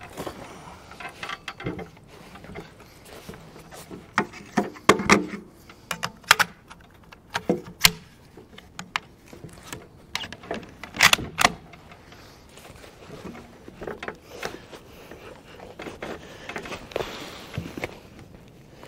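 Handling clicks and knocks as a shooter gets ready at the bench: earmuffs being fitted, then the bolt of a Howa 1500 bolt-action rifle being worked to chamber a round, with a sharp pair of clacks about eleven seconds in. No shot is fired.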